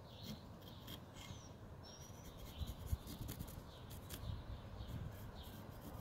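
Pencil scratching lines onto a wood block in short strokes, faint against a low outdoor background, with a couple of small bird chirps early on.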